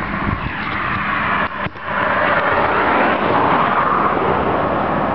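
Scania 164L 580's V8 diesel engine running as the truck and trailer pull slowly across, a steady loud rumble that briefly dips about a second and a half in.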